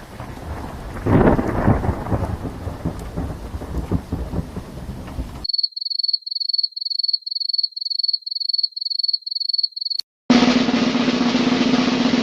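A string of separate sound effects. First a low rumbling noise, rain- and thunder-like, that swells about a second in and cuts off suddenly. Then a high electronic beep repeated about three times a second for around four seconds, and after a click, a dense hiss with a steady low hum.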